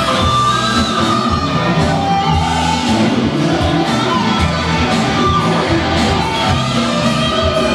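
Live band playing rock music: electric and acoustic guitars, keyboard and drum kit, running steadily through the whole stretch.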